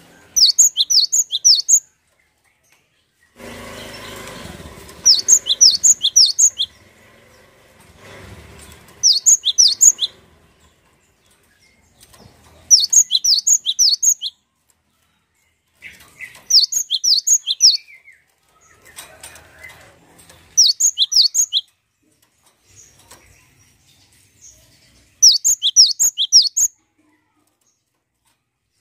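Cinereous tit (gelatik batu) singing loudly: seven bursts of quick, high, repeated notes, each about a second and a half long, with pauses of a couple of seconds between them. A short rustle comes about three and a half seconds in.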